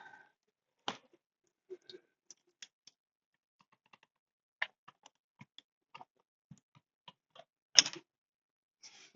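Scattered light clicks and knocks of tools and chainsaw parts being handled during disassembly, irregular and spaced apart, with the loudest knock near the end.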